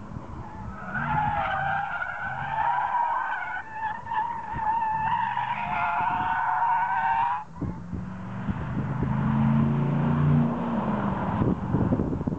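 Chevrolet Camaro SS drifting: its tyres squeal in a long, wavering screech that cuts off sharply about seven seconds in. After the break the 6.2-litre V8 is heard revving, rising in pitch and then dropping back as the car slides on.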